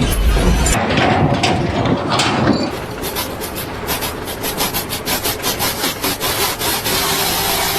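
Rhythmic scraping strokes, several a second, like a blade or rasp working on wood, after a couple of seconds of irregular clattering. A steady hum starts near the end.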